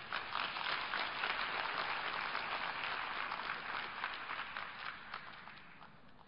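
Audience applauding, building up in the first second and dying away near the end.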